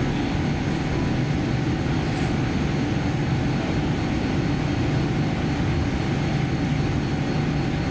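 Cabin noise inside a Boeing 787-10 while it taxis: a steady low rumble from the engines at taxi power, the wheels rolling on the taxiway and the cabin air, with a faint high whine.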